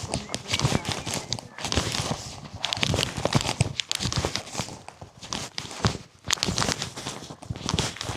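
Footsteps crunching on a gravelly, rocky trail: an irregular run of scuffs and crunches.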